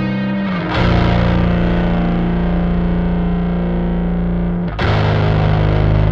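Soundtrack music led by a distorted electric guitar: long held chords, with a new chord struck about a second in and again near five seconds.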